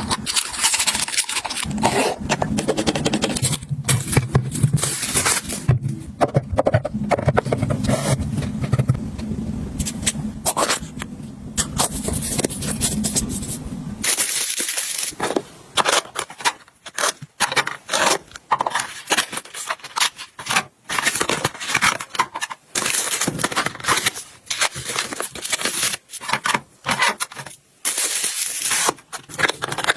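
Household items being handled and organized: a dense run of scrapes, rustles and clicks of packaging and containers being moved and set down. A low steady hum runs under the first half and stops abruptly about halfway through.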